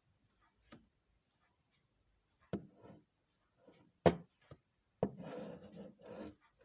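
Handling noise on a watchmaker's bench: a few sharp clicks and knocks, the loudest about four seconds in, then about a second of rubbing and scraping.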